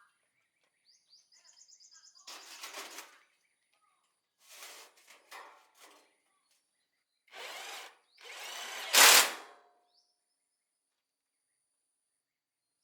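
A power tool run in four short bursts, the last and loudest about nine seconds in, preceded by a faint rapid ticking.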